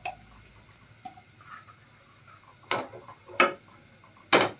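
Three short, sharp clicks in the kitchen, under a second apart, with faint background between them.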